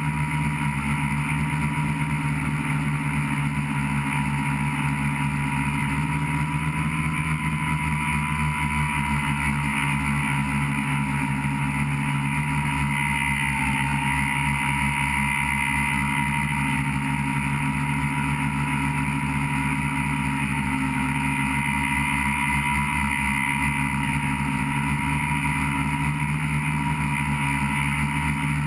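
A tricopter's three electric motors and propellers running steadily in flight, heard from the onboard camera: a constant low hum under a high whine that wavers slightly in pitch.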